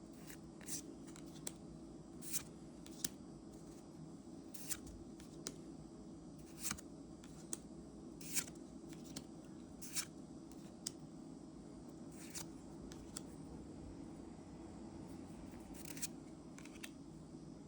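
Trading cards from a freshly opened Magic: The Gathering booster pack being flipped through one at a time: short crisp swishes of card sliding on card, irregularly every second or so, over a steady low hum.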